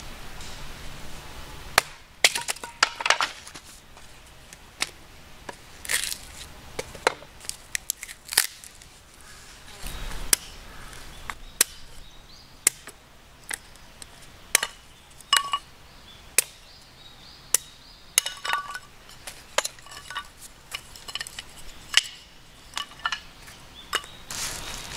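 Broad-bladed hatchet splitting kindling on a wooden chopping block: a long irregular series of sharp chops and wood cracking, beginning about two seconds in, as small sticks are split for lighting a fire.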